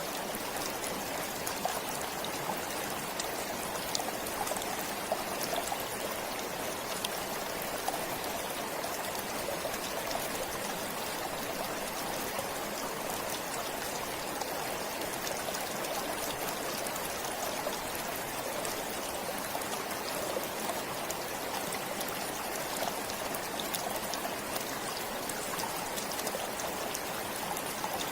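Forest stream flowing steadily, an even rush of water with fine trickling and small splashes over it.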